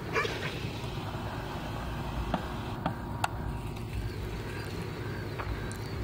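Steady low outdoor rumble, with a few faint short clicks.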